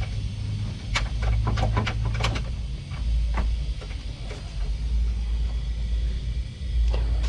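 Steady low rumble, with a quick run of light clicks and knocks from about a second in and a few single knocks later, as parts and tools are handled during work on the radiator.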